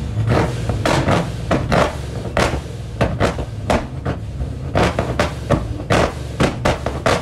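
Car exhaust popping and banging: a run of sharp, irregular cracks, roughly three a second, over the engine's low running, from a modified car set up for pops and bangs.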